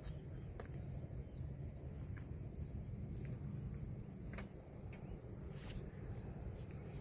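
Outdoor farm ambience: a steady low rumble, a thin high insect-like whine that stops about two and a half seconds in, small bird chirps and a few sharp clicks. No cow is heard lowing.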